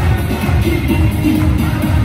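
Loud, upbeat pop dance music playing steadily.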